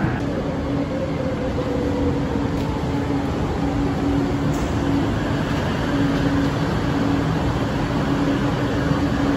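Rapid KL light rail train pulling into the platform: a steady rumble with a low hum that comes and goes.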